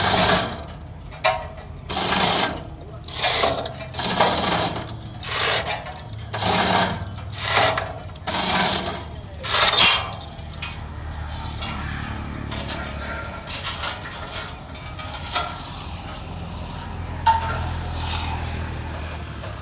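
Hand-pulled chain hoist on a steel log-truck gantry, its steel chain rattling and clattering in about ten bursts, roughly one a second, as it is hauled to lift a log. The rattling stops about halfway, leaving a low steady engine hum that swells near the end, with one sharp metallic click.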